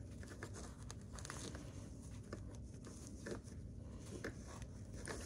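Fabric pieces being handled and lined up by hand: soft, faint rustling of cloth with scattered light clicks and taps.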